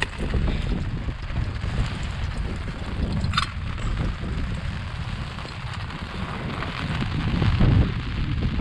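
Wind buffeting the microphone, a steady low rumble, with one brief high rising squeak about three and a half seconds in.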